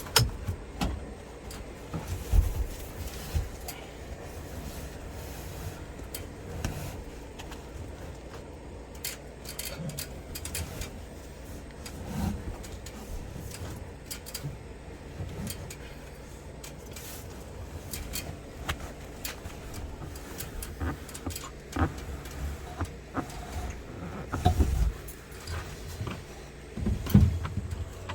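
Handling noise in a truck cab as an old mattress is pulled out: scattered knocks, clicks and rustling, with a few heavier thumps about two seconds in and near the end.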